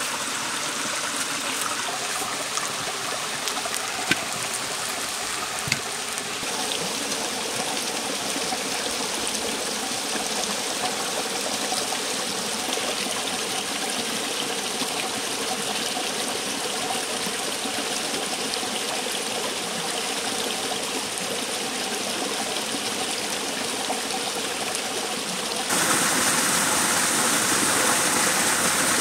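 A small waterfall running steadily, stepping up in loudness about three seconds before the end. A couple of sharp knocks sound in the first six seconds.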